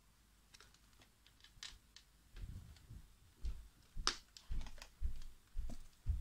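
Multimeter test probes and leads being handled, with small plastic clicks and taps. From about two seconds in come dull low thuds, roughly two a second.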